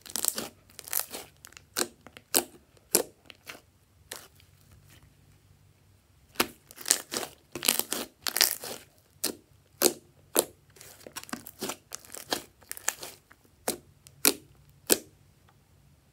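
Thick slime squeezed and kneaded by hand in a glass dish, giving irregular wet crackles and pops in quick clusters, with a quieter gap of about two seconds a few seconds in.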